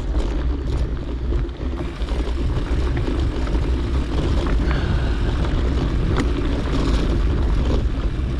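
Mountain bike riding on a dirt trail: wind rumbling over the action camera's microphone together with tyre noise, with a few sharp clicks and rattles from the bike.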